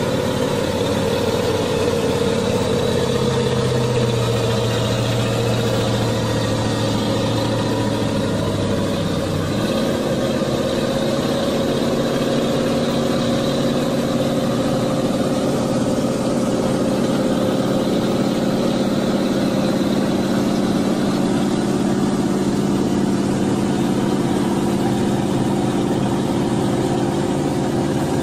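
Diesel engine of an XCMG XDA40 articulated dump truck running steadily as the loaded truck crawls through deep mud, its engine note changing about a third of the way in.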